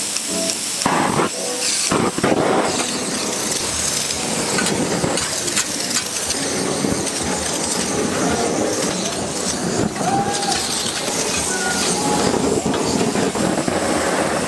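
Beef cubes and crinkle-cut fries sizzling on a flat-top griddle, with the steady hiss of a handheld butane torch flaming the steak.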